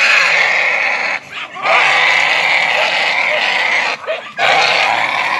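Wild hog squealing in long, loud distress screams while pinned to the ground, with short breaks about a second in and about four seconds in.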